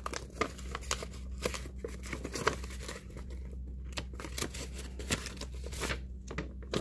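Plastic-wrapped packaging and cardboard crinkling and rustling as it is handled, with irregular crackles and light taps.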